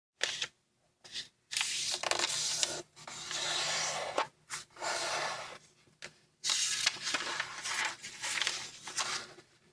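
Square of origami paper handled by hands: it rustles and slides in several bursts with short pauses as the fold is pressed and creased. Near the end the sheet is opened back out.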